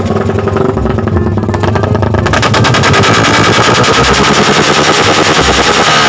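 Suzuki Raider 150 engine running with an aftermarket slip-on exhaust, firing a rapid, continuous string of backfire pops from the pipe. The popping comes from an ignition interrupter relay cutting the spark.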